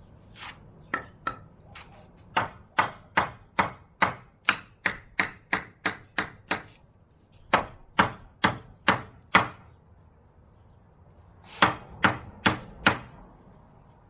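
Hammer blows struck in quick runs, roughly two or three a second: a few light taps, then a long run of about a dozen strikes, then two shorter runs after pauses.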